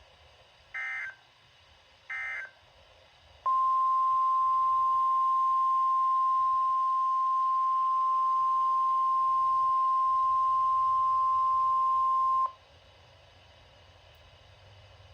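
Two short bursts of EAS/SAME digital data tones, then the NOAA Weather Radio 1050 Hz warning alarm tone: a single steady tone held about nine seconds that cuts off sharply. The alarm tone signals that a new warning broadcast is starting.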